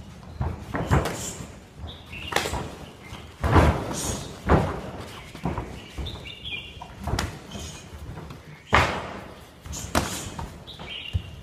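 Muay Thai kicks and punches slapping into boxing gloves and forearms, about ten sharp hits at uneven intervals with a few shuffling footsteps on the ring canvas, in a large echoing gym.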